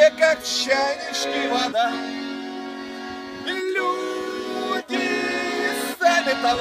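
Button accordion playing held chords that change every second or two, with a man singing along to it.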